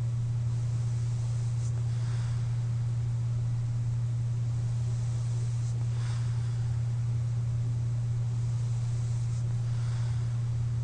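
A sleeper breathing with a CPAP mask on: faint airy breaths about every four seconds over a steady low hum.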